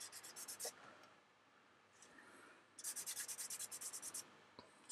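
Fingertip rubbing pastel pigment onto the painted plastic surface of a scale model's wing in quick back-and-forth strokes, faint. There is a short burst of strokes at the start, then a pause of about two seconds, then another fast run of strokes.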